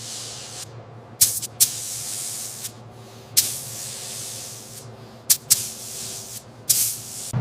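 Repeated short bursts of spraying hiss from a nozzle, about six of them, each starting sharply and trailing off into a softer hiss.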